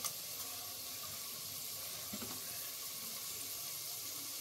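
Mixed vegetables and mint leaves sizzling in butter and oil in a pressure cooker: a low, steady hiss.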